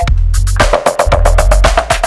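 Background music with a loud, fast percussive beat over a heavy bass line.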